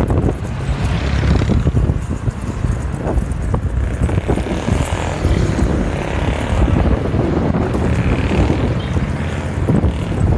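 Wind buffeting the microphone with road rumble while riding along a paved street: a loud, steady, gusty noise with no engine note standing out.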